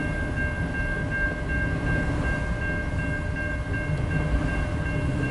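Freight train cars, mostly autoracks, rolling past a grade crossing with a steady heavy rumble and the rattle of wheels and couplers, over a thin steady high ringing tone.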